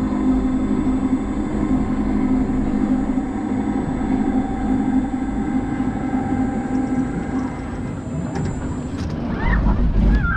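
Roller coaster car being driven slowly along the track, giving a steady electric-drive hum with a thin high whine. The hum cuts off abruptly about nine seconds in, and wind rumble on the microphone takes over as the car is released.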